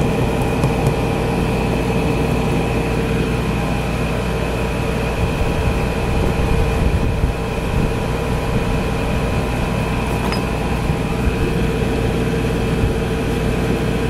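LG window air conditioner running: a steady hum of compressor and fan with a constant mid-pitched tone over a low rumble.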